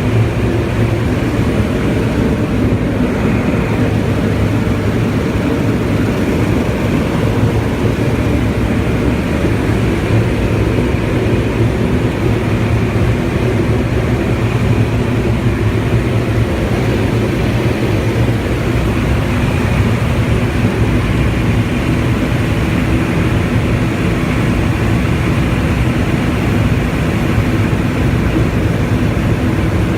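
Turbo Thrush agricultural plane's turboprop engine and propeller running steadily at constant power.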